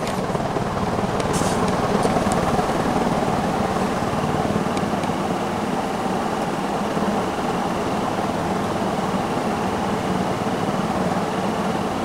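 Vintage Evergo-built Montgomery Ward 48-inch cast-aluminium spinner ceiling fan running at high speed: a steady rush of air from the blades over a low motor hum.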